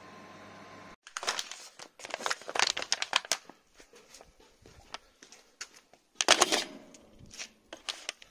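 A second of steady hum, then a thin aluminium foil tray crinkling and clicking as it is handled, in two main bursts of sharp crackles with scattered clicks between.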